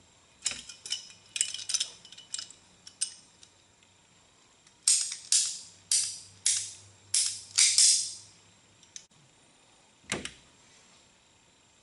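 Red hand hose cutter squeezed through black rubber hose in six sharp cutting strokes about half a second apart. Before it come small clicks and rustles of the hose being handled, and near the end there is a single knock.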